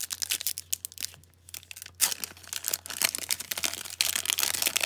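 Foil wrapper of a 2009-10 Upper Deck Victory hockey card pack being torn open and crinkled by hand. There are scattered crackles at first and a brief lull about a second in, then dense crinkling from about two seconds in as the pack is pulled apart.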